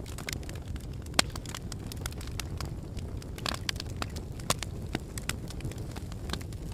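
Volcanic eruption: a steady low rumble with irregular sharp cracks and pops, the loudest about a second in.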